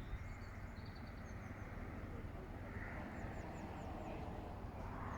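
Park ambience: a steady low rumble of distant traffic under faint, high chirps of small birds, with a run of about five quick falling notes around three seconds in.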